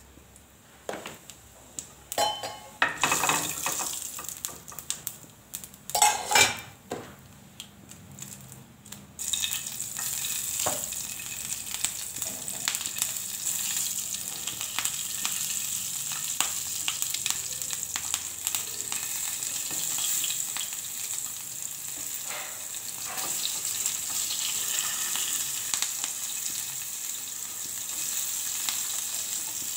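Tempering in hot oil in a small steel frying pan: cumin seeds and green chillies frying. After a few knocks and clatters, a steady loud sizzle starts suddenly about nine seconds in and keeps going.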